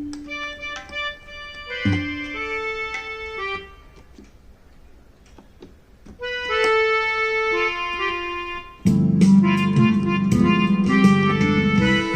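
Yamaha PSR-I400 portable keyboard playing short phrases of sustained notes with a pause between them, then about nine seconds in a louder, fuller sound with sharp regular beats comes in.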